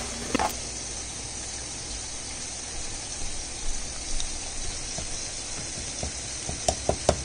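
Diced onions and bell peppers sizzling in butter in a non-stick frying pan, stirred with a wooden spatula, as they are cooked until translucent. Near the end come a run of sharp taps and scrapes of the spatula against the pan.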